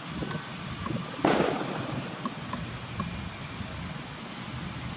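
Steady outdoor background noise with a short, loud rush of noise a little over a second in, followed by a few faint ticks.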